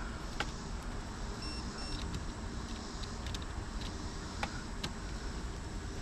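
Faint scattered clicks and taps of small hand work while wiring an electrical outlet, the wires being fastened to its terminal screws, over a steady low background noise. Two short, faint high beeps sound about one and a half to two seconds in.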